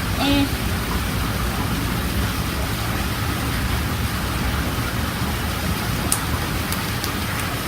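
Steady, even hiss of background noise, with a few faint clicks near the end.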